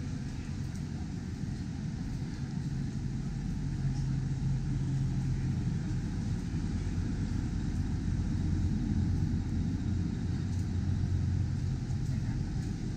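Steady low city rumble and hum, getting a little louder about four seconds in.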